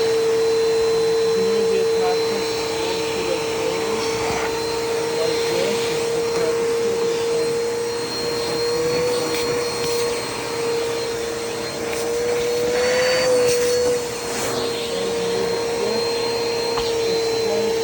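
Upright vacuum cleaner running steadily, its motor giving a strong even whine over a rushing hiss. The pitch rises slightly for a moment around nine and again around thirteen seconds in.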